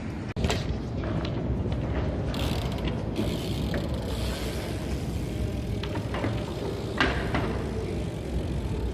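Ratcheting and clicking from a BMX bike, typical of the freewheel pawls of its rear hub, with scattered sharp knocks (one just after the start, a louder one about 7 s in) over a steady low rumble.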